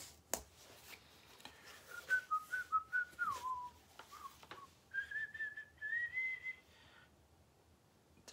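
A man whistling softly to himself: a few short notes that slide downward, then a longer, higher note that rises slightly.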